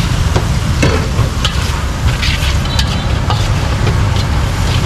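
Metal ladle and spatula scraping and clinking against a steel wok as a stir-fry sizzles in sauce, in short strokes about every half second. A steady low rumble runs underneath.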